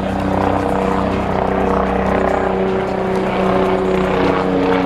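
A loud, steady engine drone with several held pitches that drift slowly and dip slightly near the end, like a motor vehicle or aircraft passing.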